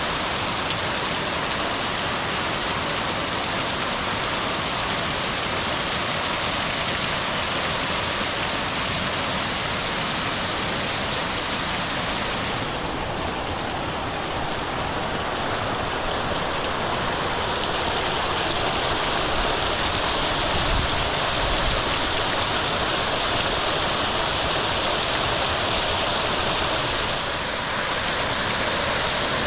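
Steady rush of water from a small cascading waterfall on a creek, briefly duller about halfway through.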